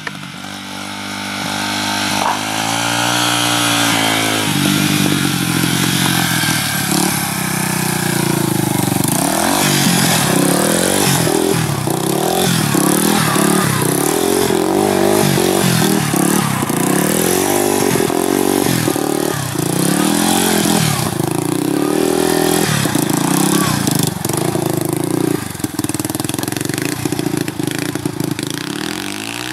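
Three-wheeled ATV engine revving hard and easing off again and again, its pitch rising and falling every second or two as the rider pops wheelies. It gets louder about two seconds in.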